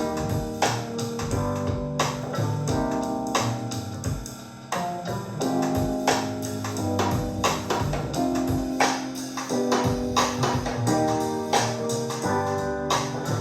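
Instrumental music with a steady drum beat and melodic notes, played back through Klipsch La Scala horn loudspeakers driven by a Decware SE84UFO2 single-ended tube amplifier.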